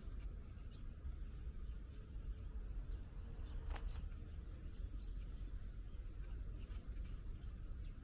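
Outdoor ambience: a steady low rumble with faint, short high chirps scattered through, and one sharp click about four seconds in.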